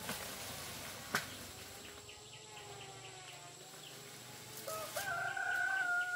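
A rooster crows once near the end: a short rising start, then a long held note that stops abruptly. Faint wavering calls sound before it, and there is a single sharp knock about a second in.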